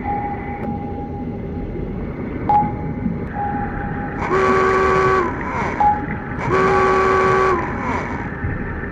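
Underwater-themed sound effects: a pinging tone that starts with a click about every three seconds over a steady rumbling wash, and two long, low horn-like calls near the middle, each about a second long and sagging in pitch at its end.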